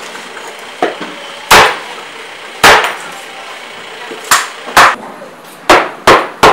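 Heavy cleaver chopping through tuna flesh and bone onto a wooden block: seven loud, sharp whacks at uneven intervals, the last three in quick succession, over steady background noise.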